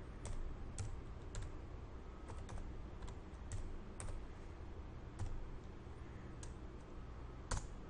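Faint keystrokes on a computer keyboard: a dozen or so single taps at an uneven pace as a short bearing value is typed in, the last one near the end the loudest.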